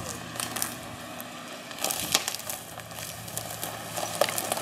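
Toyota Tacoma pickup creeping past at low speed, its engine running low and steady, with crackling and snapping from the tyres rolling over twigs and dry forest litter, sharpest about two seconds in.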